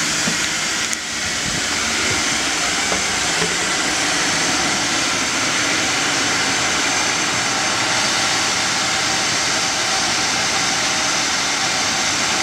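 Steady, loud hiss of rushing air inside an aircraft cabin, with a brief dip about a second in.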